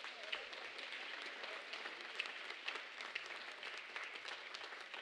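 Congregation applauding: a steady patter of many hands clapping after a sung solo ends.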